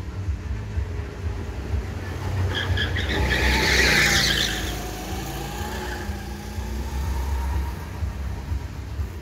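A go-kart running through a bend close by, its tyres skidding on the asphalt and its small engine humming; the sound swells to its loudest about four seconds in and then fades.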